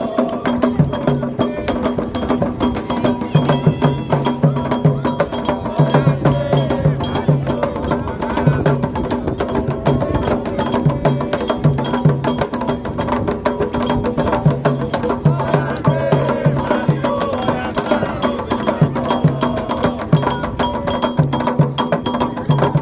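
Candomblé toque: atabaque drums beating a repeating low pattern under a fast, steady struck timeline, with voices singing over it.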